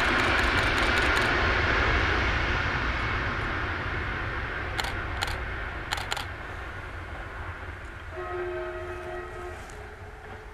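Passenger train passing on the rail line and fading away, the rumble of its wheels on the track dying down steadily. A few sharp clicks come about five to six seconds in, and a faint horn is held for about a second and a half near the end.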